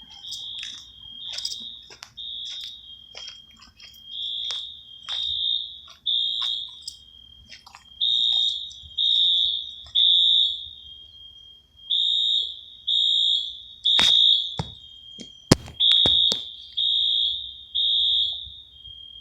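Fire alarm horns, EST Genesis units and a Wheelock AS, sounding for a test in the temporal-three evacuation pattern: three short, high-pitched blasts, a pause, then again. A few sharp knocks come in about two-thirds of the way through.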